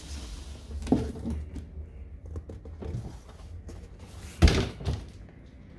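Cardboard boxes scraping and rubbing as a statue's retail box is pulled out of its cardboard shipping box. There is a light knock about a second in and a louder thump a little after four seconds as the box is set down on the display turntable.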